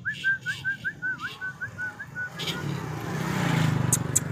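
A run of short quick chirps, about four a second, fades out after two and a half seconds. A passing motor vehicle grows steadily louder toward the end.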